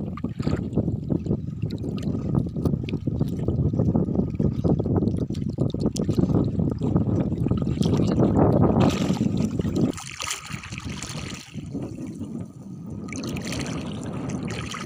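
Shallow sea water splashing and sloshing as a gill net is hauled and shaken by hand while wading. A heavy low rumble underneath drops away about ten seconds in, leaving brighter splashes and drips.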